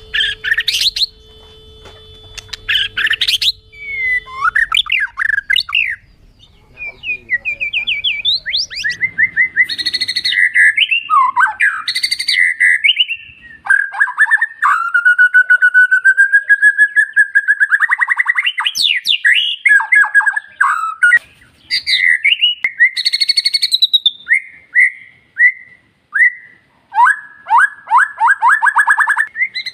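White-rumped shama (murai batu) singing: a varied run of clear whistles, pitch glides and fast trills of rapidly repeated notes, in phrases broken by short pauses.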